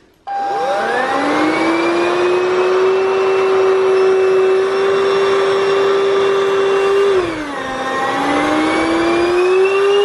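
Redmond RV-UR341 cordless stick vacuum switched on: its motor spins up to a steady high whine, dips in pitch about seven seconds in, then climbs back up.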